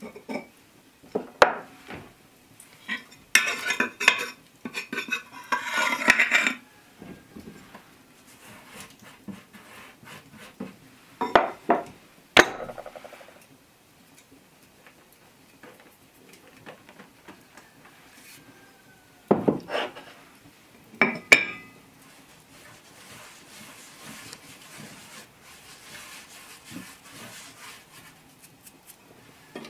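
Earthenware crocks and kitchen utensils being handled: scattered clinks and knocks, with a longer run of clattering and scraping a few seconds in and more sharp knocks toward the middle.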